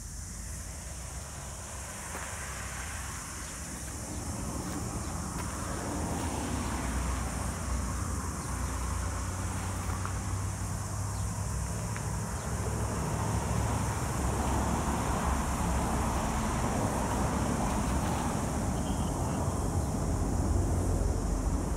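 Road traffic going by: a steady rush of engine and tyre noise with low rumble, growing louder through the second half. A constant high hiss runs underneath.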